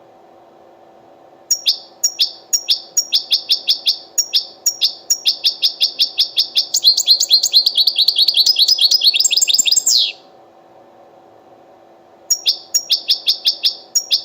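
European goldfinch singing: quick series of sharp repeated high notes that run into a fast trill ending in a falling note, then after a short pause a new series of notes starts near the end. A faint steady hum underlies it.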